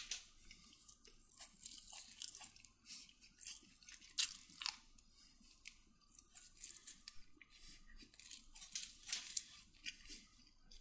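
A person chewing and crunching food, a quick irregular run of short crackles and mouth sounds.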